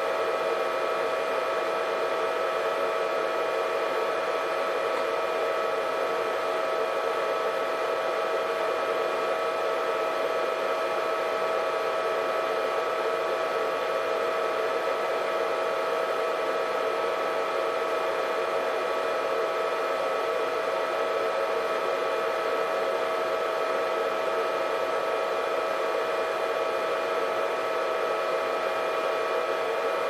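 Hair dryer running steadily: an even rush of air with a constant whine held on a few fixed pitches.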